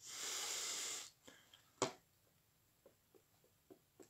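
A person breathing out hard through the nose close to the microphone, lasting about a second. A single sharp click follows a little under two seconds in, then a few faint ticks.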